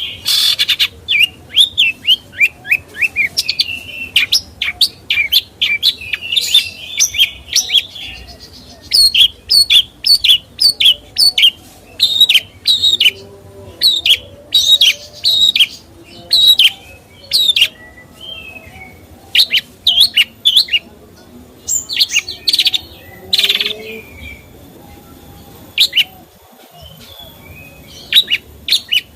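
A songbird singing a long run of sharp, short chirps and quick phrases, often several a second with brief pauses between bursts, growing quieter for the last few seconds.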